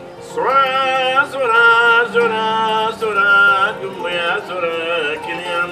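A man singing in long, held notes, starting with an upward swoop about half a second in, to the accompaniment of a kora, the West African calabash harp-lute, plucked beneath the voice.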